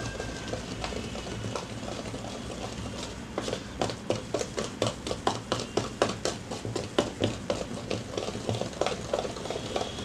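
Wire whisk beating dosa batter in a plastic bowl. The stirring is a soft scraping at first, and from about three seconds in it becomes a quick, regular clicking at about three strokes a second as the wires tap the bowl. The batter has just had Eno fruit salt added and is being whipped frothy.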